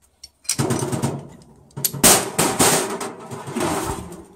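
Steel ball bearings from a CV joint clattering and rolling around a stainless steel sink as the joint is pulled apart. It starts about half a second in and is loudest about two seconds in.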